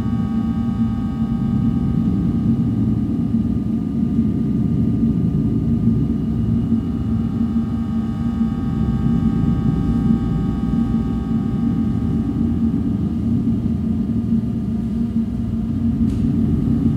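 Electronic noise music played live on laptop and electronics: a loud, steady low rumbling drone with a strong hum at its base, layered with thin sustained high tones.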